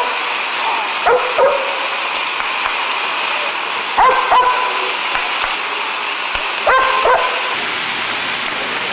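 Dog barking in short pairs, about one pair every three seconds, over a steady rushing noise.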